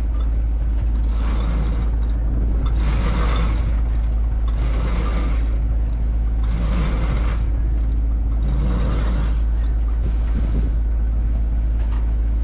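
A sailboat's sheet winch ratcheting in five bursts about two seconds apart as the headsail is hauled out off its roller furler, over a steady low rumble.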